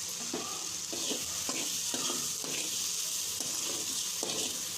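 Onion-tomato masala sautéing in hot oil in a pan, sizzling steadily, stirred with short scraping strokes about twice a second.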